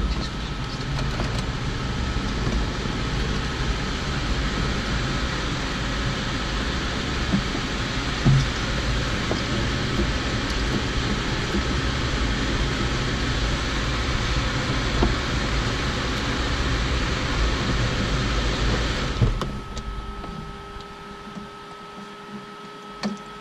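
Steady rushing, whirring noise from electrically powered equipment in the cabin of a Beechcraft Bonanza G36 with its electrical system on before engine start. It cuts off suddenly about 19 seconds in, leaving a quieter electrical hum with a steady high whine.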